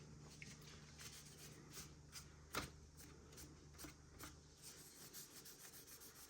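Faint rubbing and light scratching of a wet sanding sponge and fingers on a painted scale-model car body, with small ticks throughout and one sharper click about two and a half seconds in, over a low steady hum.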